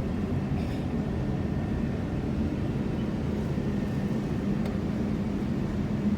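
Steady low rumble of a jet airliner heard from inside the cabin, engines and air conditioning running, with a faint even hum underneath.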